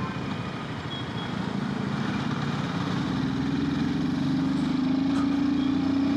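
Royal Enfield Himalayan 450's single-cylinder engine pulling under throttle while riding. Its note rises steadily for a few seconds and drops suddenly near the end.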